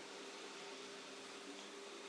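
Faint room tone: a steady hiss with a low electrical hum and no distinct handling sounds.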